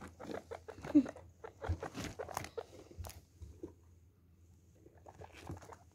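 Guinea pigs scrabbling in wood pellet bedding: a run of light clicks and rustles as the pellets shift underfoot. One louder short sound comes about a second in, and there is a lull near the end before the rustling resumes.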